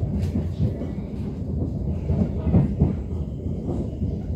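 Rumble of an NS Sprinter New Generation electric train running on the line, heard from inside the passenger cabin, with a few heavier knocks about two and a half seconds in.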